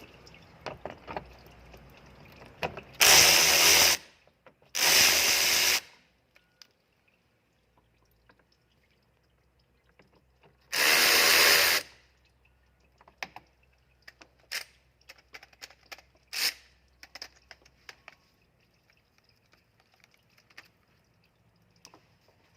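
A power tool driving a 10mm socket, spinning off the three nuts of the oil filter access cover: three whirs of about a second each, the first two close together and the third several seconds later. Scattered light clicks and clinks follow.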